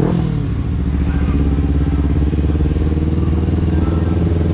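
Kawasaki Ninja 300 parallel-twin engine heard from the rider's seat, dipping in pitch early on and then running at a steady pitch.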